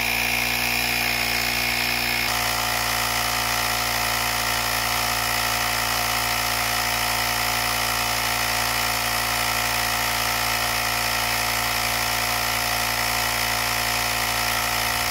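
Carsun cordless mini tyre inflator (portable air compressor) running steadily while pumping up a car tyre: a loud, even mechanical drone with several steady tones. Its tone shifts slightly about two seconds in.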